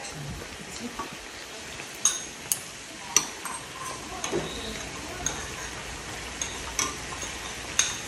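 Meat and kimchi frying in a pan on a portable gas burner: a steady sizzle, with a few sharp clicks of utensils against the pan and dishes.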